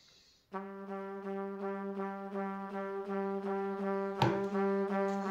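Background music: a brass instrument repeating one low note in short pulses, coming in about half a second in. A single sharp click about four seconds in.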